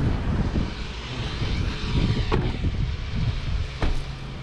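Toyota Fortuner 4x4 driving slowly over rough, grassy ground: a low rumble broken by two sharp knocks, about two seconds in and near the end.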